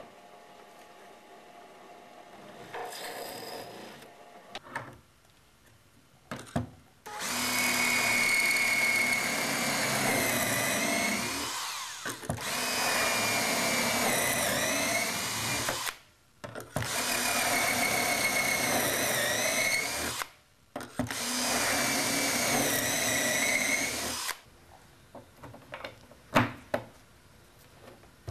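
Cordless drill boring four holes in a row through a drilling template into a cabinet panel. Each run lasts a few seconds, with a steady whine that dips as the bit bites. A few light knocks and clicks come near the end.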